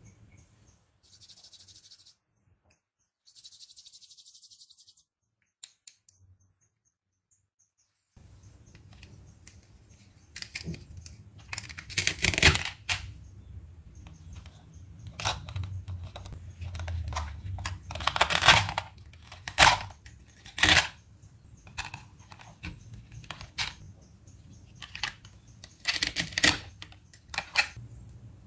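Plastic toy food pieces handled on plastic plates: sharp plastic clacks and taps, with a few longer ripping sounds of velcro pulling apart as the toy burger is separated. The first several seconds are nearly quiet apart from two soft hissy scrapes.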